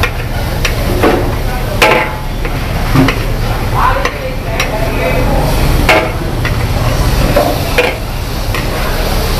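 Metal ladle scraping and knocking against a wok as noodles are stir-fried over a steady sizzle. The ladle gives sharp, irregular clanks about once a second.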